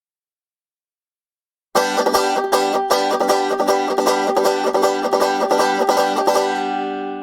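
Banjo picked in a quick, steady run of bright plucked notes, starting suddenly about two seconds in. Near the end the picking stops and the last notes ring on and fade.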